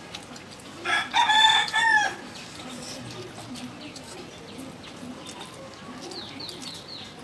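Rooster crowing once, a single call of about a second that rises, holds and falls away about a second in.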